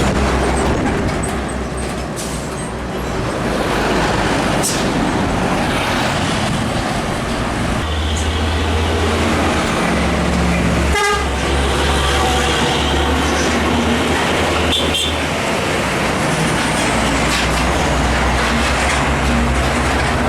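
Heavy diesel trucks passing on a highway, with a steady low engine rumble and tyre noise. A short horn toot sounds about halfway through, and another brief high toot a few seconds later.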